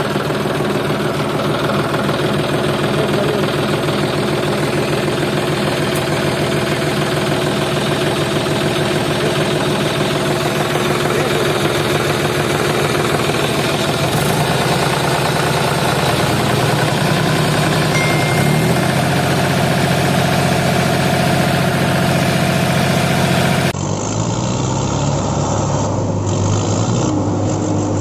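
Tractor engine sound running steadily, most likely a sound effect laid over the toy tractor. The engine note changes about halfway through, and shifts abruptly again a little before the end.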